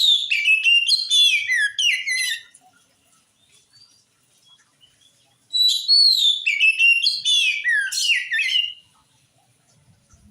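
Oriental magpie-robin singing in full voice: two bursts of rapid whistled song, each about three seconds long, many notes sliding downward. The first ends about two and a half seconds in; the second starts after a pause of about three seconds.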